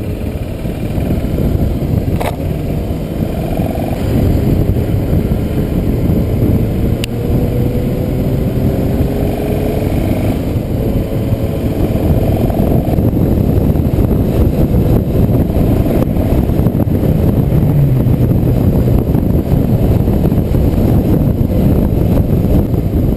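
A motorcycle riding along at road speed, heard from the rider's seat: the engine runs under a rush of wind noise, and its note climbs a few times in the first half as the bike accelerates.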